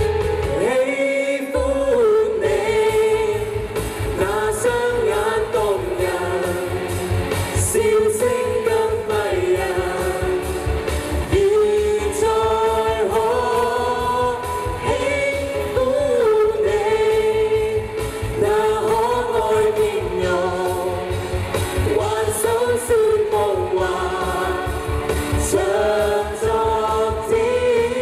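Three singers performing a medley of classic Chinese pop songs live over amplified backing music with a steady beat. The low end drops out briefly about a second in.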